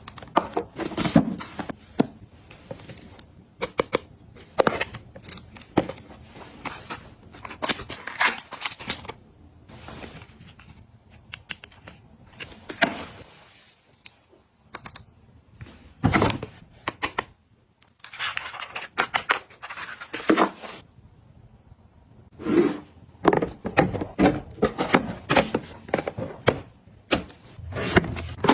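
Items and packaging being handled and set down up close: irregular clicks, taps and rustles, with a few short pauses.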